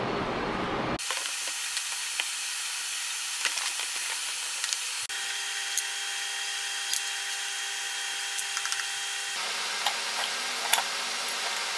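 A steady hiss, with scattered light clicks and knocks of metal parts as the mill drill's quill and spindle bearing assembly are handled on the bench.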